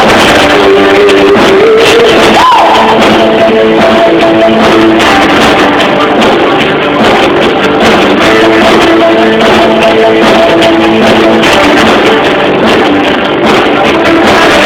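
Live rock band playing loud, with electric guitar holding sustained notes; a short pitch bend comes about two and a half seconds in.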